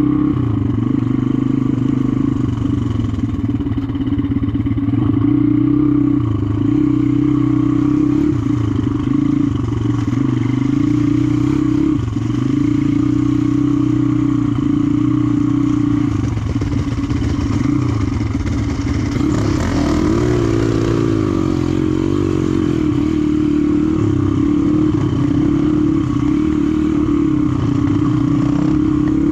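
Four-stroke dirt bike engine running steadily under way, with light clattering from the bike. About twenty seconds in, the revs rise and fall a few times.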